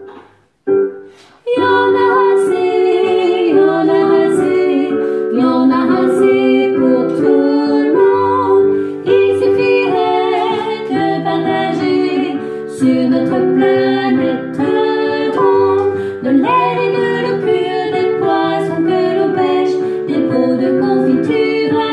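A woman singing the soprano part of a choir song, accompanied on a digital piano; the music starts about a second and a half in and carries on steadily.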